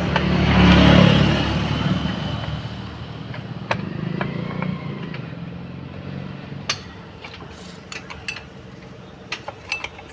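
A motor vehicle passing, its engine loudest about a second in and fading away over the next several seconds. Scattered sharp metallic clinks of tools and brake parts being handled in the second half.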